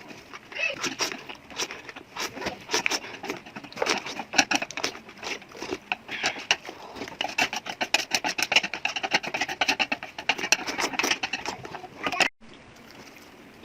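Close-miked eating sounds: fast, wet chewing and slurping of noodles, with a burst of rapid mouth clicks. It cuts off suddenly near the end.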